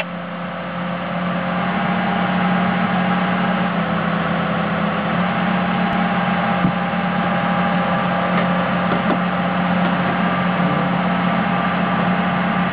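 A heavy machine's diesel engine running steadily with a constant low drone, growing a little louder over the first two seconds.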